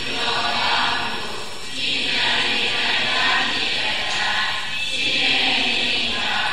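A group of voices chanting together in long swelling phrases, each rising and easing over about two to three seconds.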